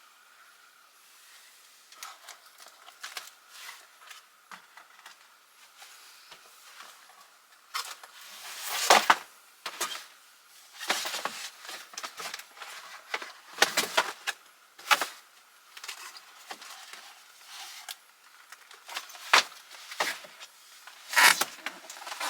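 Things being handled and moved about while a closet is cleared out: scattered knocks, clatters and rustling, with the sharpest knocks about nine, fifteen and twenty-one seconds in.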